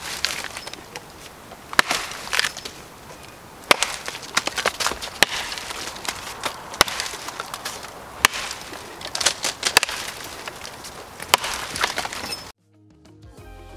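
Cold Steel Trail Boss axe chopping into a fallen softwood evergreen log: a sharp chop about every second and a half, each with a crackle of splintering wood. The chopping cuts off near the end and soft music begins.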